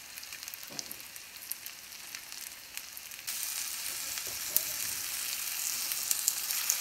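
Tandoori-marinated chicken pieces sizzling in a cast-iron frying pan, with small crackles of spitting fat. The sizzle gets louder about three seconds in, as the pieces are turned over with metal tongs.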